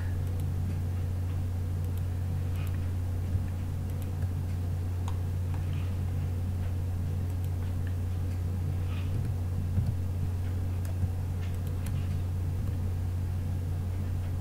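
Steady low background hum, with a few faint scattered clicks of computer mouse and keyboard use.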